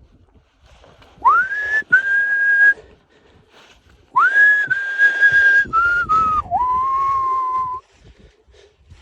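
Highline webbing vibrating in storm wind and giving off a loud whistling tone in two gusts. Each time the tone swoops up and holds high over a rush of wind noise. In the second gust it then drops to a lower pitch and holds before cutting off.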